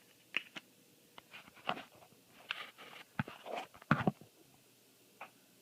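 Trading cards being handled: a scattering of short soft clicks and slides as cards are moved and set down, with a couple of louder knocks about four seconds in.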